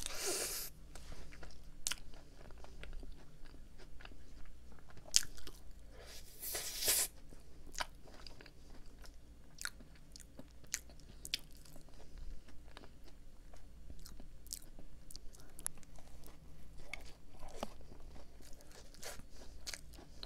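Close-up chewing and biting of a Lotus Biscoff cookie donut: soft crumbly crunching and many small mouth clicks, with two louder bursts at the start and about six seconds in.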